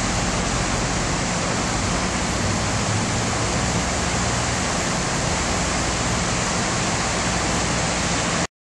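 Steady rushing of the flood-swollen Boquet River overflowing its banks, with some low rumble. It cuts off abruptly just before the end.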